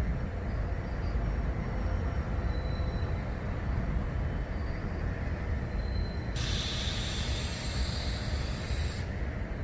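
Steady low outdoor rumble. About six seconds in, a hiss comes in suddenly and cuts off just as sharply about two and a half seconds later.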